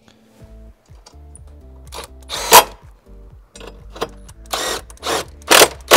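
Several short bursts of a socket tool spinning down the nuts on a car battery's hold-down bracket, the loudest about two and a half seconds in, over background music.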